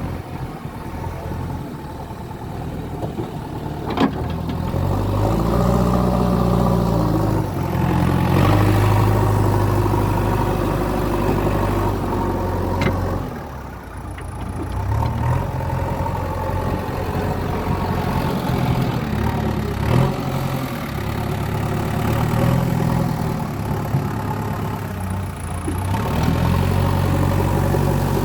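JCB 3DX backhoe loader's diesel engine running, its pitch rising and falling repeatedly as the hydraulics load it during backhoe digging. A few sharp knocks stand out, about four, thirteen and twenty seconds in.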